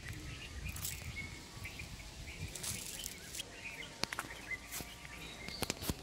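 Small birds chirping in short bursts over the low rumble of wind buffeting the microphone, with a few sharp clicks in the last couple of seconds.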